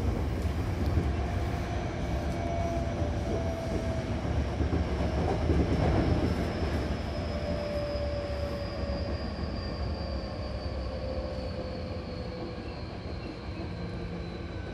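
Hankyu Kyoto Line electric train heard from inside the car as it slows: steady wheel-and-track rumble with a whine that falls slowly in pitch, briefly louder about six seconds in, then gradually quieter as the train brakes into the station.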